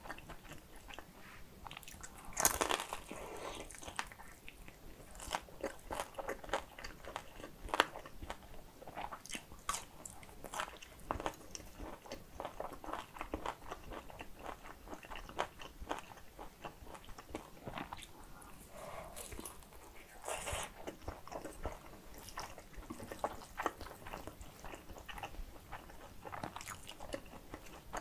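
Close-miked eating: biting into and chewing pan-fried dumplings, crisp crunches and wet mouth sounds. Louder crunchy bites come about two and a half seconds in and again around twenty seconds in.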